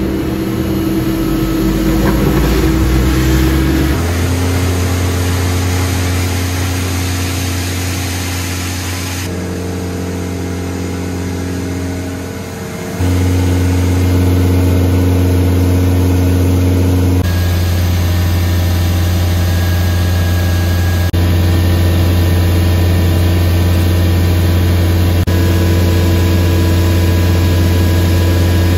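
Vacuum truck running with its suction pump working on the hose: a steady low mechanical hum with a few steady tones above it, shifting abruptly in pitch and level several times.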